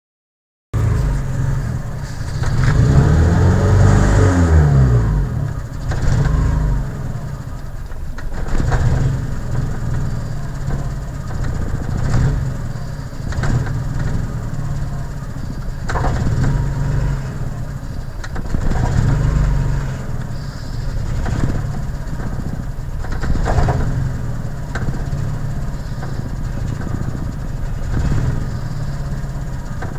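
1992 Honda Accord's F22A1 2.2-litre four-cylinder engine idling roughly. It is revved up and back down about three seconds in, then blipped briefly several more times, every three to four seconds.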